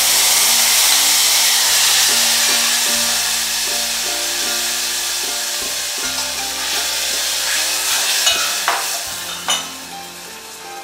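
Yogurt-marinated mutton hitting hot oil in a steel pot, sizzling loudly and then slowly dying down. A few spoon knocks on the pot come near the end, over background music.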